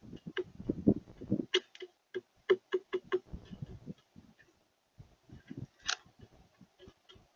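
Birds and a squirrel feeding at a bird feeder, making irregular taps and clicks. A cluster of duller thumps comes in the first second and a half, sharper clicks follow to about three seconds in, and then fainter scattered ticks with one louder click near six seconds.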